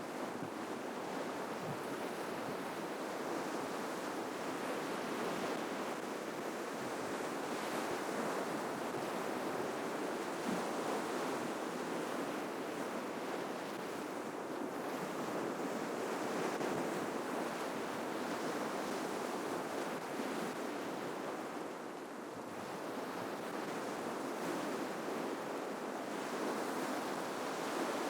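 Ocean surf breaking and washing onto the shore in a continuous rush, easing briefly near the end before building again.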